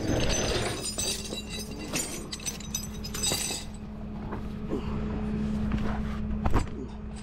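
Steel tow chain and hooks clanking and rattling as the chain is pulled out and hooked under a van's frame, with sharp metal clinks throughout and the loudest clank near the end. The tow truck's engine runs with a steady low hum underneath.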